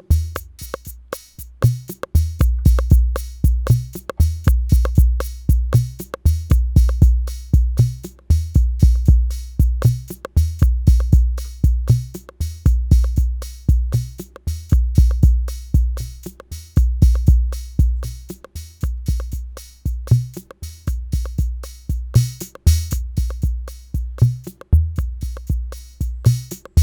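Arturia DrumBrute analog drum machine playing a looping beat: long booming kick drums under fast ticking hi-hats and other percussion, with levels being mixed live on an analog mixer.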